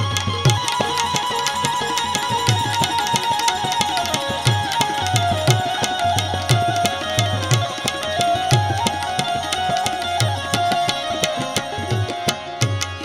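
Instrumental interlude of live Gujarati devotional santwani music: a held melody line that slides down and later climbs back up, over regular low drum strokes and busy clicking percussion. Near the end the low drum strokes stop.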